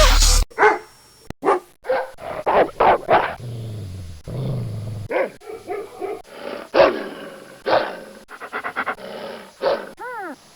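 A dog barking in a run of short, irregular barks, with a low growl between barks about four seconds in and a few high, arching yelps near the end.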